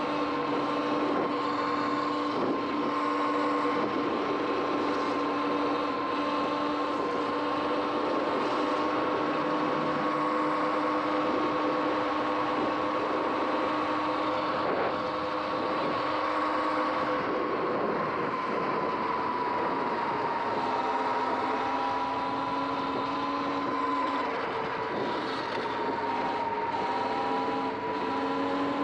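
Sur-Ron X electric dirt bike's motor whining steadily while riding on a wet street, over a hiss of wind and tyre noise. The whine dips a little in pitch past halfway as the bike slows.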